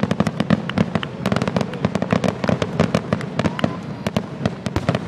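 Fireworks going off in quick succession: a dense, irregular run of sharp cracks and pops, several a second, over a low rumble.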